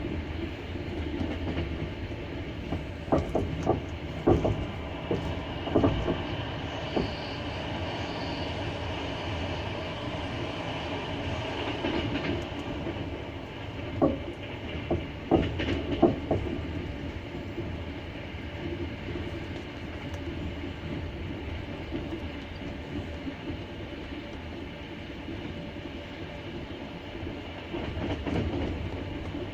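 Double-deck passenger train running on the rails with a steady rumble. The wheels clatter over rail joints in quick groups of knocks, once a few seconds in and again about halfway through.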